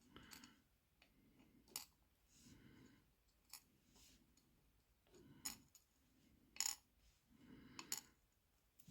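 Pin tumblers and springs from a Yale padlock core being dropped out, giving a handful of faint, sharp metallic clicks a second or two apart, with light handling rustle between them.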